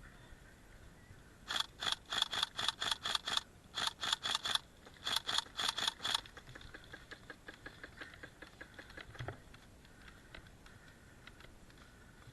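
Airsoft gun firing three quick strings of sharp, snapping shots, about six or seven a second, then fainter scattered shots further off.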